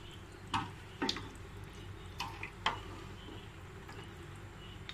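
Wooden spoon stirring rice in chicken stock in a cooking pot: soft liquid sloshing broken by about five light, sharp taps.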